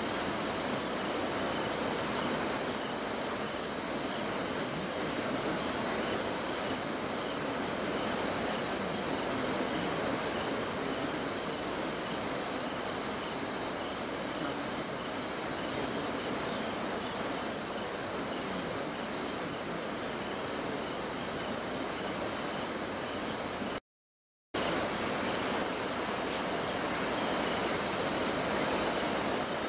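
Steady high-pitched chorus of insects at dusk, one continuous shrill note, over the even rush of a fast-flowing river. The sound cuts out completely for under a second about four-fifths of the way through.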